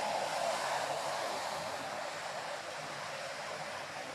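Ocean surf washing onto a sandy beach: a steady rushing noise that swells near the start and slowly eases off.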